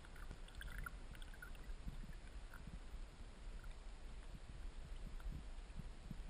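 Muffled underwater rumble of flowing creek water, heard through a submerged camera, with scattered soft low knocks and a few faint clicks in the first second and a half.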